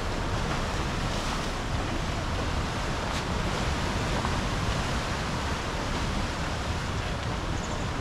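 Rough ocean surf breaking on black lava rocks along the shore, a steady rushing of water.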